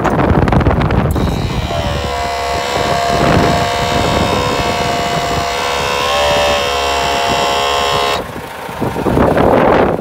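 A steady machine hum with a pitched whine, starting about a second in, wavering slightly and cutting off suddenly near the end, with wind and handling noise on the microphone around it.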